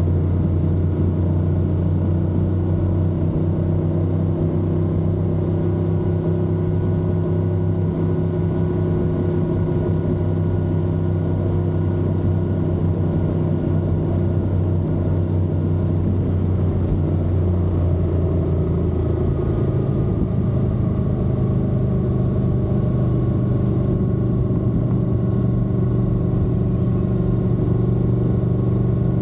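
Honda NC750X motorcycle's parallel-twin engine running steadily under way, its note shifting up in pitch about two-thirds of the way through.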